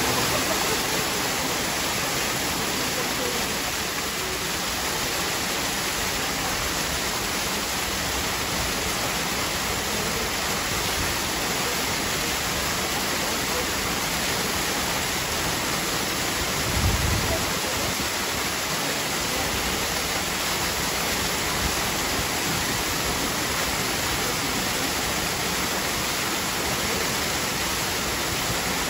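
Steady rush of falling water running into a pool. One brief low thump comes about seventeen seconds in.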